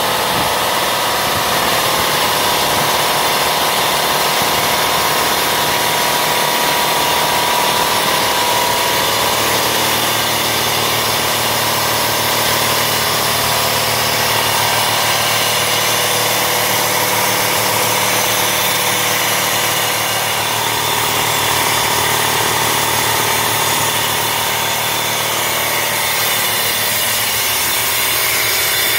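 DeWalt 60-gallon vertical stationary air compressor running steadily: its 3.7 hp electric motor drives the belt-driven, oil-lubricated pump, building pressure in the tank.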